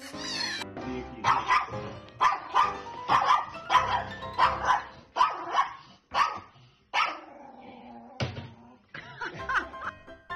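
A small dog barks over and over, about a dozen sharp barks roughly two a second, with light background music underneath.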